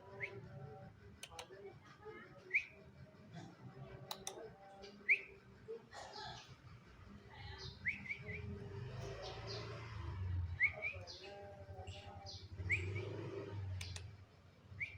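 Young canaries chirping and singing: short rising calls repeated every second or two, with a few sharp clicks and a low hum beneath.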